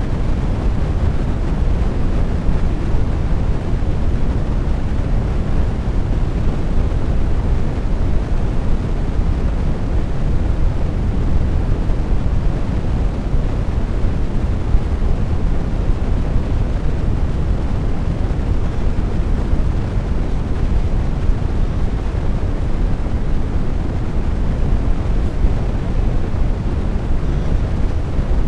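Steady, loud low rumble with no speech and no distinct events, unchanging throughout.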